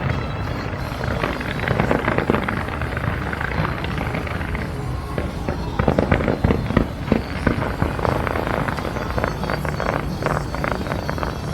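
Aerial fireworks going off in rapid succession, a dense stream of bangs and crackles that grows busiest over the second half.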